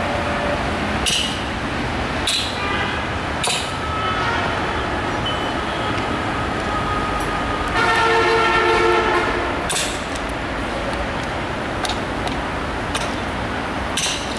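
A passenger express train approaching with steady running noise, and its locomotive horn sounding one blast of about two seconds just past the middle. Several short, sharp hissing clicks are heard along the way.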